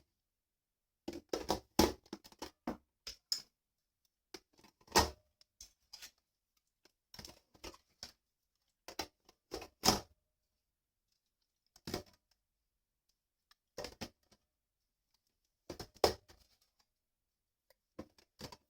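Scattered clicks, knocks and short rustles of things being handled, coming in brief clusters a few seconds apart with silence between.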